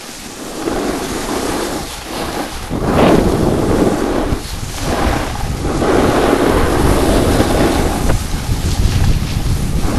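Wind buffeting the microphone: a loud, rumbling rush that swells and dips in gusts.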